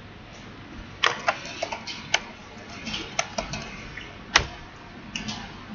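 Computer keyboard being typed on: a quick run of sharp key clicks, with one louder click about four seconds in, as a word is entered into a search box.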